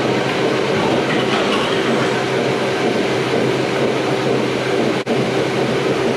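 Milk-house pump running steadily with water rushing through the milk lines during a rinse: a constant mechanical hum over a rushing noise, with a momentary break about five seconds in.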